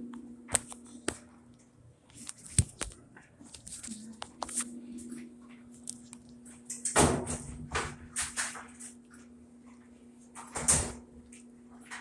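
Handling noise: scattered clicks, knocks and rustling, with a faint steady hum beneath. The two loudest rustles come about seven and about ten and a half seconds in.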